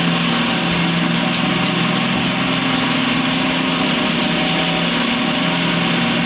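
Cotton candy machine running, its spinning head driven at a steady speed with an even motor hum.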